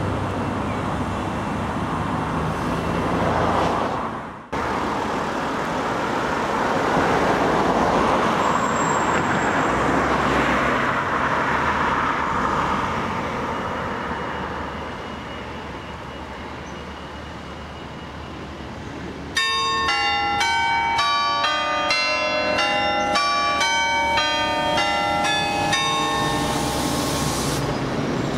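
Road traffic runs steadily, then about two-thirds of the way in the Bournville Carillon's bells start playing a quick run of many different notes, ringing for several seconds over the traffic.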